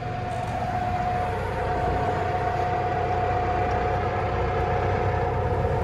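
Diesel engine running steadily, with a high steady whine that fades out about two seconds in.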